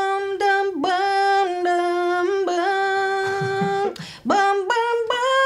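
A woman singing a song's melody unaccompanied from memory: a run of short notes, then a long held note about two and a half seconds in, a short breath near four seconds, then more notes.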